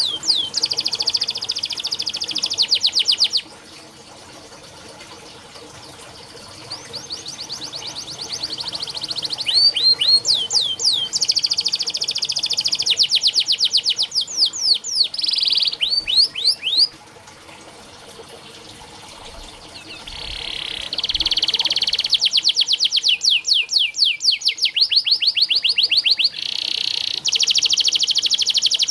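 Domestic canary singing long rolling trills: fast runs of repeated sweeping high notes, some held as a buzzy roll. The song comes in phrases, with two brief quieter breaks about four seconds and eighteen seconds in.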